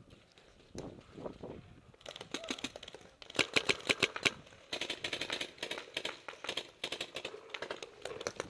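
Paintball markers firing in rapid strings of shots, a fast crackle of pops that thickens from about two seconds in.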